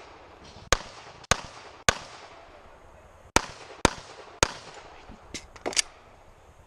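Glock pistol fired in two quick strings of three shots, about half a second apart, with a pause of a second and a half between the strings. A few fainter sharp clicks follow near the end.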